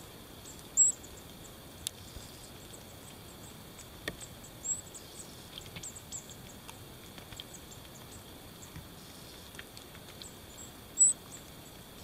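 Small songbirds giving short, very high calls three times: about a second in, near the middle and near the end. Scattered light taps and clicks come between them, a European crested tit pecking at hazelnuts on a wooden feeder platform.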